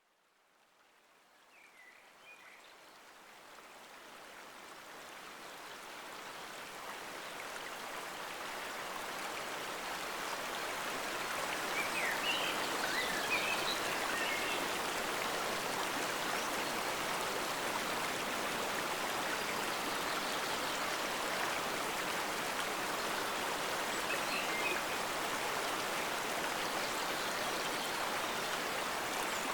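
Forest stream water flowing, a steady rushing hiss that fades in from silence over the first ten seconds or so and then holds level, with a few short high chirps here and there.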